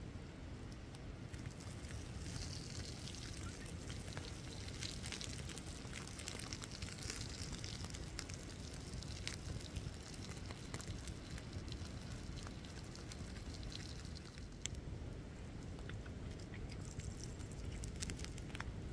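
Split-log wood fire burning, with irregular crackles and pops and a low rumble of the flames underneath.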